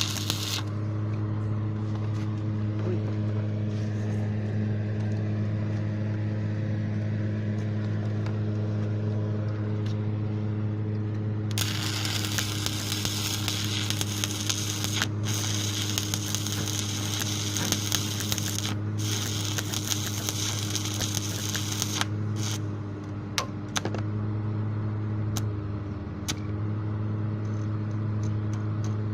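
Stick-welding arc from a 1/8-inch 7018 electrode crackling and sizzling steadily over a steady low hum. The crackle turns brighter and louder from about a third of the way in until about three quarters of the way through, breaking off briefly a couple of times, and picks up again near the end.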